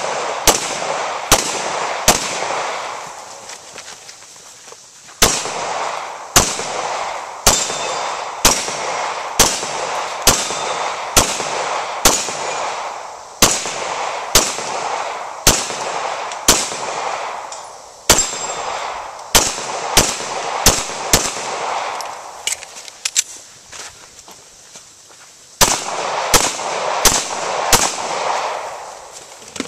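Handgun shots fired one at a time, about one a second, each with a short echo, in strings broken by brief pauses.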